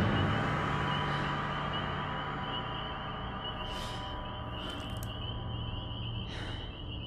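Horror film underscore: a low sustained drone fading away after a loud hit, under a steady high wavering trill, with a few short hisses about four, five and six and a half seconds in.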